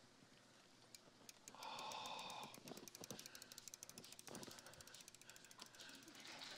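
Faint, rapid, even ticking of a bicycle's freewheel ratchet as the bike is wheeled along without pedalling. A brief faint breathy sound comes about two seconds in.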